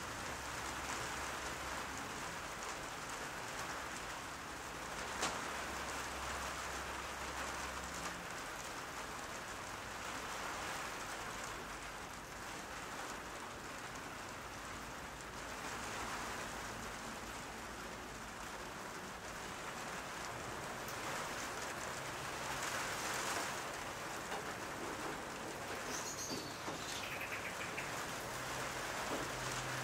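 Steady, even rain-like hiss with no distinct events, and a faint falling chirp near the end.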